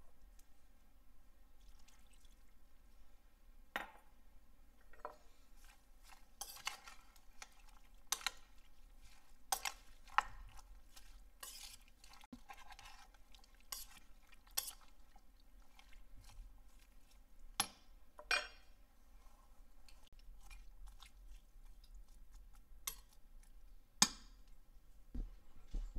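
A metal spoon stirring chopped corn, onion and peppers in a stainless steel saucepan. Scattered clinks and scrapes of spoon on pot come at uneven intervals, with a sharper clink about a second from the end.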